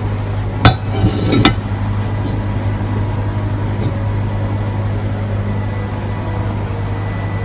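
Three sharp metallic clanks of steel against steel, with a brief ring, within the first second and a half; the first is the loudest. Under them runs a steady low hum.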